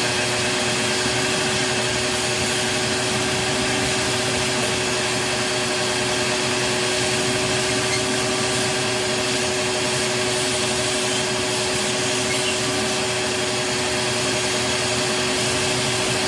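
A small electric motor-driven tool or appliance running loudly and steadily at one unchanging pitch, with no change in speed.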